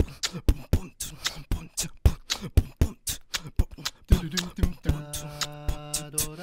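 Vocal beatboxing: a fast, even beat of mouth-made kick and snare sounds. About four seconds in, a low held hum joins and sustains under the beat.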